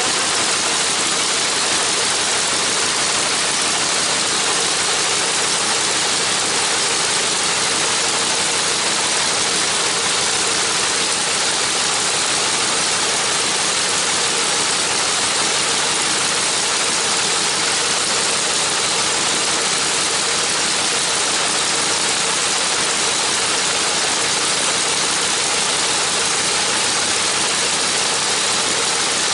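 Radial engine of a Spirit of St. Louis replica monoplane running steadily on the ground, its propeller turning, with an even, unchanging level.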